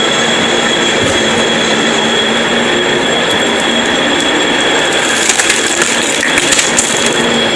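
Lathe running steadily with a constant high whine and hum, with a few short sharp clicks between about five and seven seconds in.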